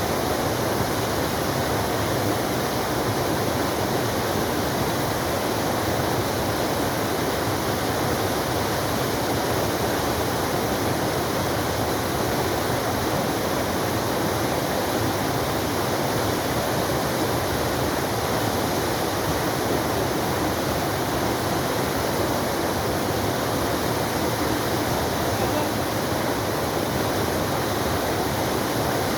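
Forest waterfall: a steady, dense rush of falling and splashing water.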